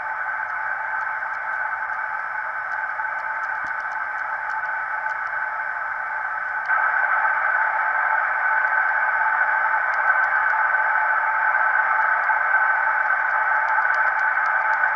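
Shortwave receiver audio from a homebrew SSB transceiver tuned to 20 MHz: a steady hiss of band noise, cut narrow by the receiver's filter, with faint crackles of static. The hiss steps louder about seven seconds in.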